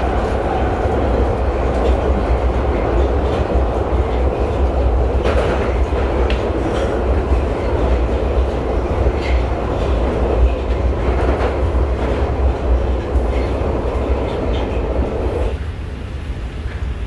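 Underground train running, heard from inside the carriage: a loud, steady rumble and rattle with a few knocks. About a second before the end the rumble drops away to a quieter steady hum.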